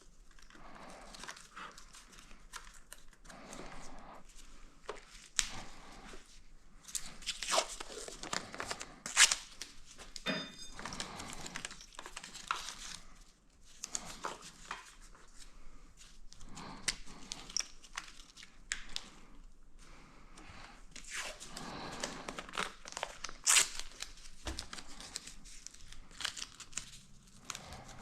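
Crinkling and tearing handling noise, like tape or plastic being torn and handled, with scattered sharp clicks and taps, all irregular.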